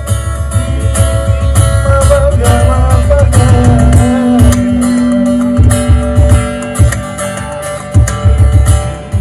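Live acoustic duo: a man singing to his strummed acoustic guitar over a steady low beat on a cajon, amplified through PA speakers. Around the middle the beat briefly drops out under a long held note.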